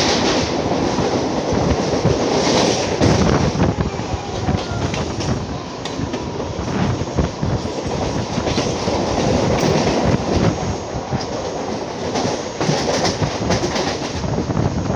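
Mumbai suburban local electric train running at speed, heard from on board: a steady loud rumble with the wheels clacking over rail joints and points.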